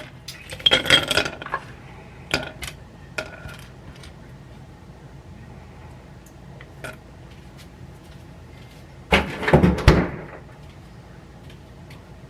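Dishes and utensils clinking and clattering: a short clatter at the start, a few single clicks, then a louder clatter about nine seconds in.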